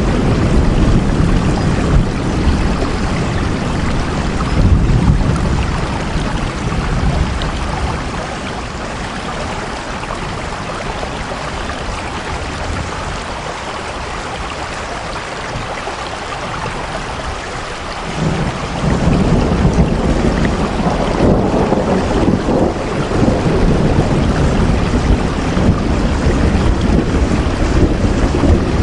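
Heavy rain falling steadily, with a deep low rumble under it that eases for about ten seconds in the middle and comes back after that.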